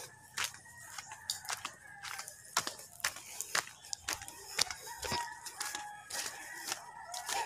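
A rooster crowing faintly, one crow clearer about five seconds in, over frequent sharp clicks and crunches close by.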